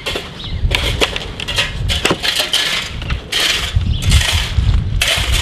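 Irregular crunching footsteps on a dirt and gravel yard, with a low uneven rumble on the microphone as the camera is carried through the gate.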